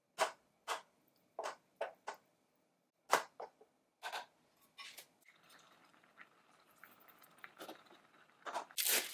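A spoon stirring thick pumpkin oatmeal porridge in a small enamel pan: about nine short, separate wet scrapes and squishes over the first five seconds. The stirring then stops and the porridge simmers faintly over the gas flame, with a louder stir or splash near the end.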